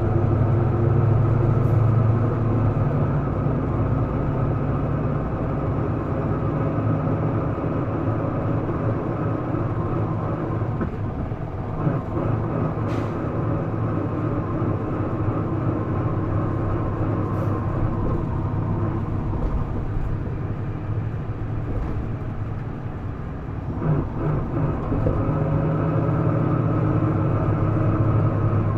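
Isuzu Erga city bus's inline-six diesel engine heard from inside the cabin, running hard under load. The engine eases off through the middle and pulls strongly again near the end.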